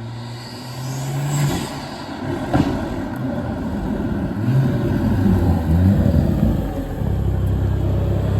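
BMW X3 M40i's B58 turbocharged inline-six, breathing through an open front-mount intake, accelerating hard: the engine note climbs in pitch twice, then holds steady and loud near the end.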